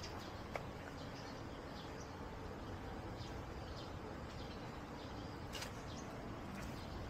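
Quiet outdoor ambience: a steady background hiss with faint, scattered short bird chirps and a couple of light clicks.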